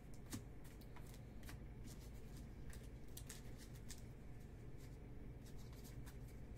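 Faint handling of stacks of baseball cards: cards sliding, rustling and tapping against each other as they are flipped through, squared up and set down, giving scattered soft clicks throughout.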